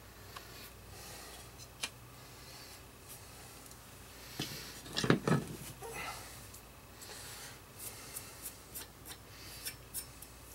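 Metal mower blades and their mounting hardware being handled: scattered light clicks and rubbing, with a louder double clunk about five seconds in.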